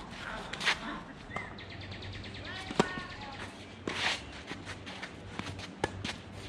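Sharp taps and shoe scuffs on a hard tennis court as a player sets up to serve, with a bird chirping briefly in the first half.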